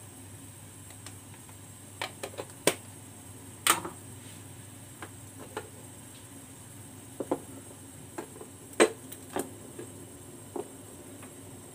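Steel pot of water heating on the stove, with irregular sharp ticks and pops, about a dozen in all, over a steady low hum; the loudest pop comes near the end.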